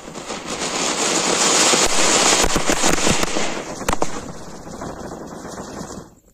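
Diwali fireworks going off in a chain: spark-spraying crackers hissing loudly, with several sharp cracks from about two and a half to four seconds in. The hiss then fades and cuts off suddenly near the end.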